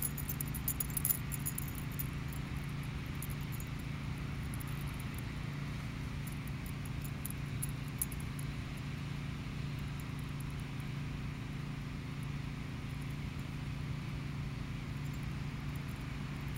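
Metal dog tags jingling on a Shiba Inu's collar as it scratches itself with a hind leg, the jingling strongest in the first couple of seconds and again around eight seconds in. A steady low hum lies under it throughout.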